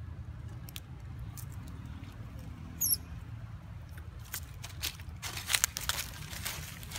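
Dry fallen leaves rustling and crackling as a macaque moves across the leaf litter close by, loudest in the last two and a half seconds. Scattered faint clicks come before it, and a brief high chirp sounds about three seconds in.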